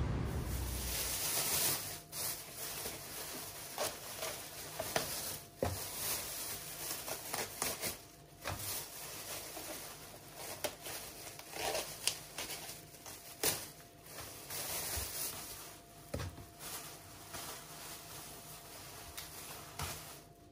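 Thin plastic produce bags rustling and crinkling in irregular bursts as lettuce leaves are pulled out by hand and dropped into a plastic bowl.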